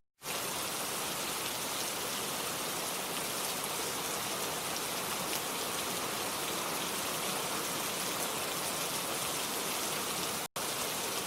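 Steady rain falling, an even hiss of many drops that starts abruptly and cuts out for a split second about ten seconds in.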